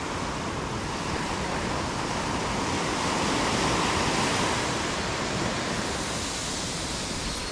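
Surf breaking and washing up a sandy beach: a steady rush of waves that swells a little in the middle.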